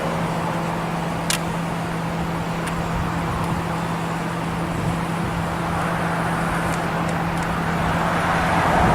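Road traffic with a steady low hum, a vehicle passing and growing louder over the last few seconds. The last falling trace of the tornado siren's wind-down fades out at the very start.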